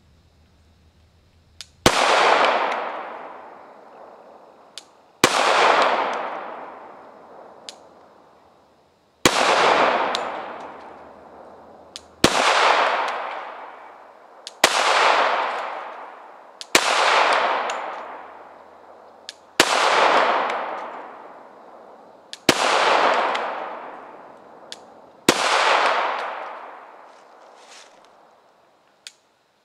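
Glock 21 Gen 4 .45 ACP pistol fired nine times at a slow, uneven pace, each shot a sharp crack followed by a tail that fades over a couple of seconds.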